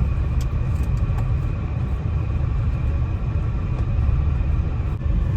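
Steady low rumble of a moving vehicle on the road: engine, tyre and wind noise while driving.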